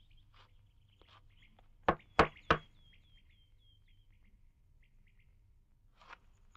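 Three sharp knocks in quick succession, about a third of a second apart, with small birds chirping softly around them.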